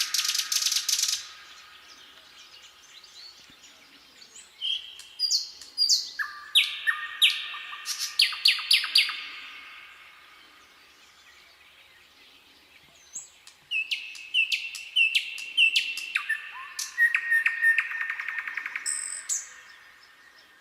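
Nightingale singing: phrases of fast repeated notes and short whistled trills, broken by pauses of a few seconds, with one phrase ending about a second in and two more around the middle and toward the end.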